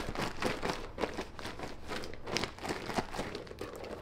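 A marinade of oil, lemon juice and spices being stirred in a bowl, heard as quick, irregular scraping and clicking.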